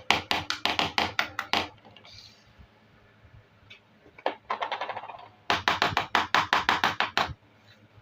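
Pieces of a plastic toy kitchen set tapped in rapid runs of sharp clicks, about six or seven a second. There are two runs, with a few single clicks and a brief scraping rattle in between.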